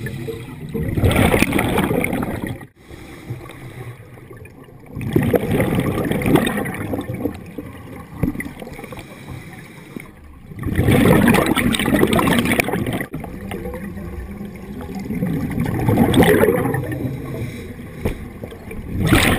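Scuba diver's regulator breathing underwater: exhaled bubbles gurgle loudly about every four to five seconds, with quieter stretches between breaths.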